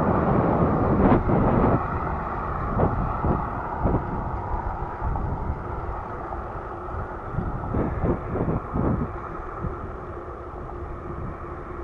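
Wind rushing over the microphone of a camera on a moving bicycle, a low rumbling buffet with scattered gust thumps; louder for the first couple of seconds, then easing off.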